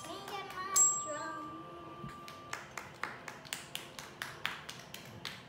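Small electronic keyboard playing chime-like notes, one held steady for nearly two seconds, over a steady ticking beat of about four ticks a second.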